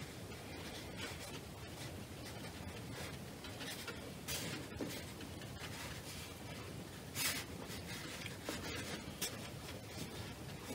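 Watercolour brush dabbing and stroking on watercolour paper: faint soft brushing, with a few brief louder swishes, the loudest about seven seconds in.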